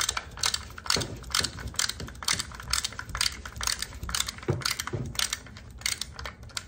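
Ratcheting hand screwdriver clicking in an uneven run of sharp clicks, about three a second, as #8 screws are driven to fix the frame onto an LED headlight.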